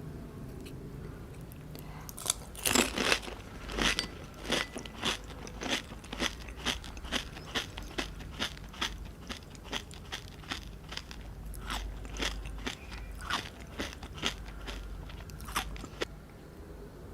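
Close-up crunching of crisp pani puri shells being eaten: a loud bite about two seconds in, then steady chewing crunches about two a second, stopping about a second before the end.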